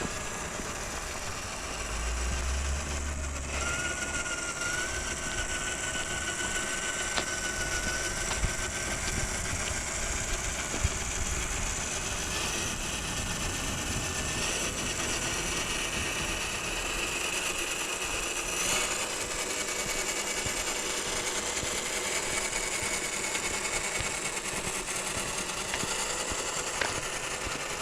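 Radio-controlled scale crawler truck driving over a trail: the electric motor and gearbox whine in a thin high pitch that drifts up and down with the throttle, with a few sharp ticks as it bumps over the ground.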